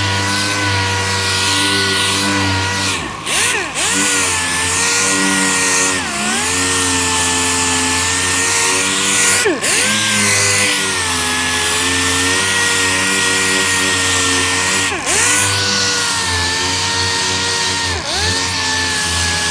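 Dual-action sander with 320-grit paper cutting down primer on a car fender: a steady motor whine over a grinding hiss, its pitch dipping briefly about five times as it is pressed onto the panel or lifted off.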